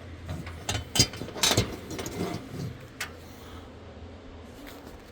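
A vending machine tray support being handled and lined up with the holes in the side rail, giving a few sharp clicks and knocks: one about a second in, two close together near a second and a half, and one about three seconds in.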